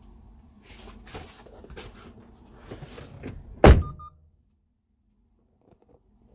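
Rustling and handling noises for a few seconds, then a door shut with one loud thump, followed right after by two short beeps.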